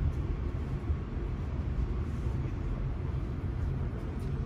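Steady low rumble inside the carriage of a Paris Transilien line L commuter train.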